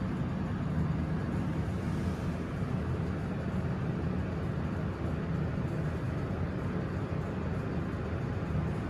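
Steady low rumble inside a Schindler 300A hydraulic elevator cab with the doors closed, the sound of the car travelling between floors.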